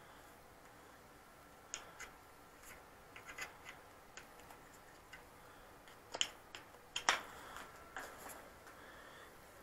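Faint, scattered small clicks and light taps of an Allen key and a road bike's brake-shift lever being handled, irregular rather than rhythmic, with two louder clicks a little past the middle.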